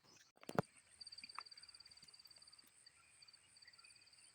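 Faint, fast, even insect trill that starts about a second in and breaks off briefly a few times, with a few faint bird chirps. A single knock about half a second in.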